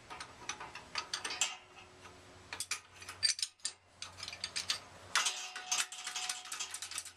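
Shop press being worked by its hand lever: a run of irregular metal clicks and clanks from the pump handle and press, loading up against a stuck gearbox output shaft.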